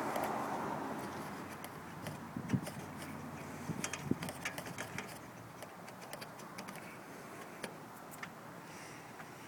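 Scattered light clicks and taps of hard plastic and small metal parts being handled as a grille fastener is fitted into its hole, with a couple of firmer knocks in the first half.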